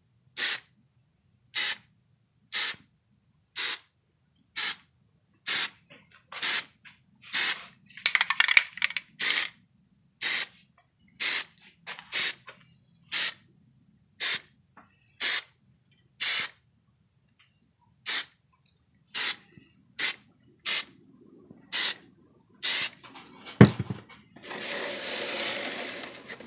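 Plasti Dip aerosol can sprayed in quick short bursts, about one a second, dusting a speckled texture coat rather than a wet even coat. Near the end comes a sharp knock, then a longer, duller hiss lasting about two seconds.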